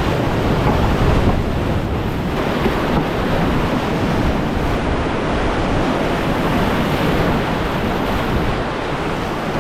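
Whitewater river rapids rushing, a steady, even wash of water noise.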